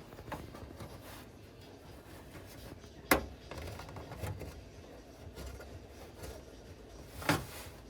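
Handling noise from work on the car's exhaust: a single sharp click about three seconds in and a short clatter near the end, with faint scraping between.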